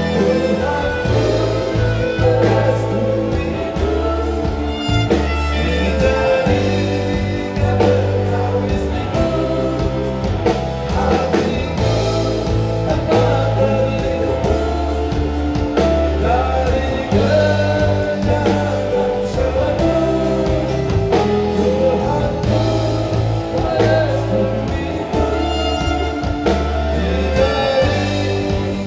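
Live band playing a slow pop song, with a man singing into a microphone over steady bass and drums.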